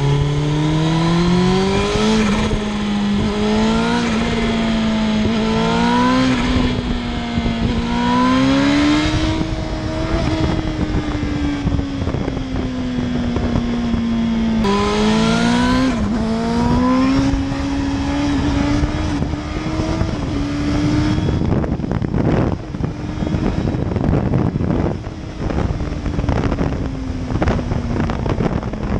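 Turbocharged Suzuki GSX-R1000 K5 inline-four accelerating hard up through several gears, the revs climbing and dropping at each shift. Between pulls it cruises, and when the throttle closes the turbo flutters with a rapid "stutututu" chatter. About three quarters of the way in it backs off to lower revs, with more flutter and wind rush.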